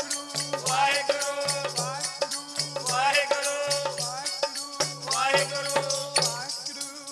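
Kirtan music: a man singing over a steady harmonium drone, with a dholak keeping a repeating beat and a hand rattle shaken in fast, even strokes.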